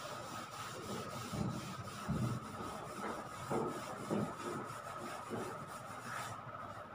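Chalkboard being erased: a duster rubbing across the board in repeated, uneven strokes.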